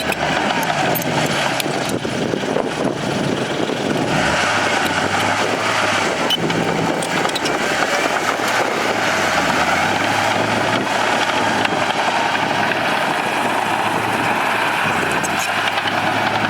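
Bulldozer diesel engine running steadily, its speed dipping and recovering a few times as it works.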